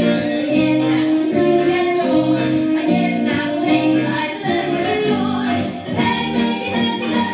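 Music: a song sung with band accompaniment, with voices holding notes over the instruments.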